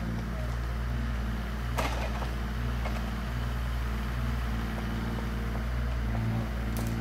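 Yanmar Vio17 mini excavator's diesel engine running steadily under working load, with a sharp knock about two seconds in and another near the end.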